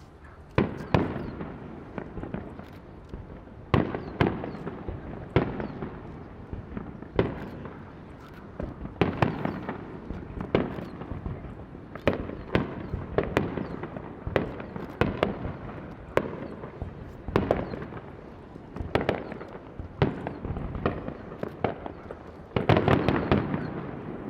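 Aerial firework shells bursting one after another, a sharp bang every second or two, each followed by a rolling rumble. A louder, quick cluster of bursts comes near the end.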